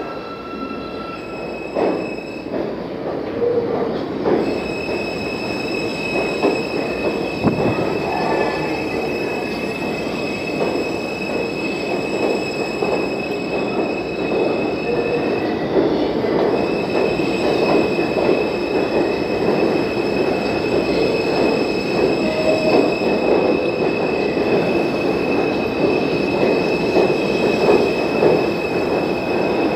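New York City subway train pulling into the station alongside the platform, its cars rumbling over the rails with a steady high-pitched squeal on top.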